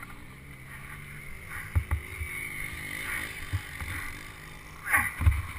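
Wind buffeting a helmet-mounted camera's microphone, with scattered thumps and knocks as a fallen dirt bike is dragged and lifted through long grass, the heaviest about five seconds in.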